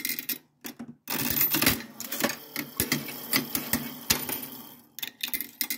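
1947 Mills QT slot machine's reel mechanism being played. A sudden dense run of clicks and clatter starts about a second in and lasts about four seconds, then a few more clicks come near the end.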